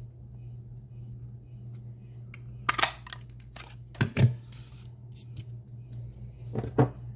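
Handheld craft paper punch worked on a strip of cardstock, giving sharp plastic-and-metal clacks three times, a little over a second apart.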